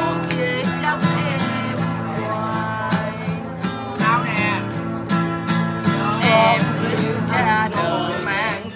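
Several voices singing a song together over guitar accompaniment.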